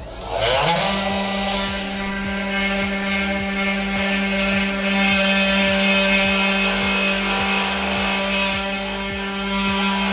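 CNC 3018 router's spindle motor spinning up with a rising whine about half a second in, then running at a steady high whine while a 0.8 mm bit drills holes in a copper-clad PCB blank.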